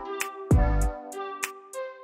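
Background music with a beat: deep kick-drum notes and sharp taps over sustained melodic tones.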